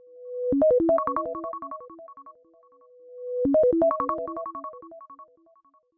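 An iOS 17 iPhone ringtone playing: a held tone swells up into a quick run of short synth notes that fade away like an echo. The phrase sounds twice, about three seconds apart, and stops near the end.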